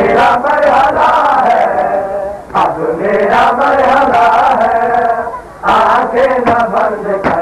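Men chanting a Shia mourning lament (noha) in phrases, with brief breaks about two and a half and five and a half seconds in. Sharp slaps of chest-beating (matam) cut in at intervals, several in quick succession near the end.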